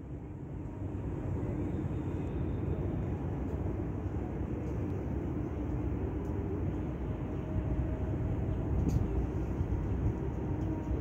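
Steady low outdoor rumble: wind buffeting the microphone over the distant hum of the city and harbour traffic below.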